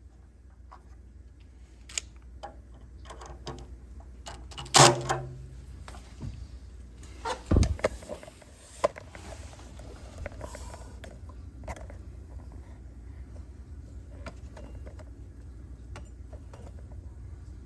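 Intermittent clinks, taps and knocks of tools and metal parts being handled, with a brief burst of a power drill about five seconds in and a dull thud a couple of seconds later, over a low steady hum.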